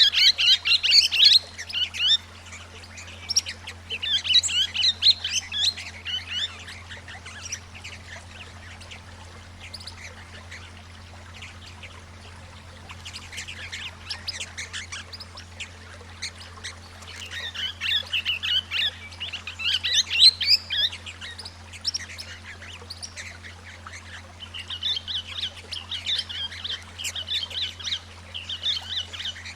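Swift parrots calling in spells of rapid, high-pitched chattering notes, over a low steady hum.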